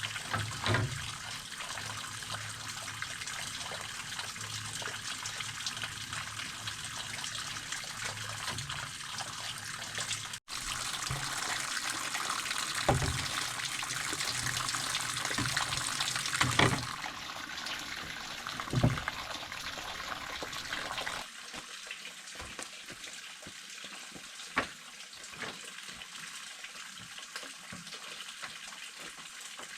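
Running water: a steady splashing rush, with a few short knocks. The sound changes abruptly twice, growing quieter and thinner after the second change.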